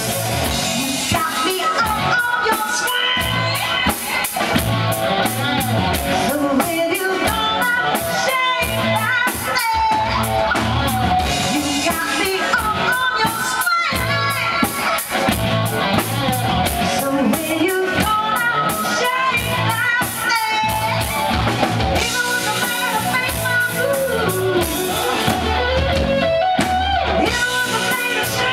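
Live rock band playing a song: a woman sings lead over electric guitar, keyboard and drums.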